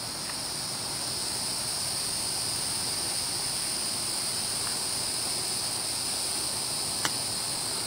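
A steady, high-pitched insect chorus, with one short click about seven seconds in as a golf club strikes the ball on a chip shot.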